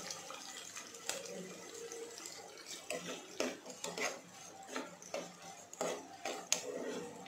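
Spatula scraping and knocking against a nonstick pot while stirring diced onions: irregular scrapes and clicks, busier in the second half. A thin stream of liquid pouring into the pot trails off at the very start.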